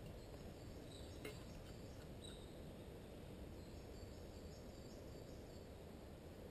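Quiet woodland ambience: a steady low background rumble with faint, distant birdsong chirping and warbling now and then, and a faint click about a second in.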